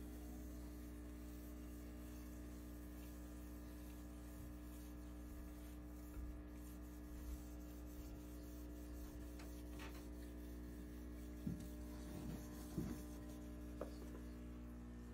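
Magnetic aquarium algae cleaner rubbing and scraping over the tank glass, faint, with a few short louder scrapes in the last few seconds, over a steady hum.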